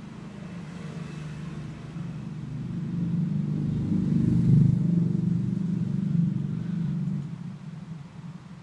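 A motor vehicle passing by: a low engine rumble that swells to its loudest about four and a half seconds in, then fades after about seven seconds.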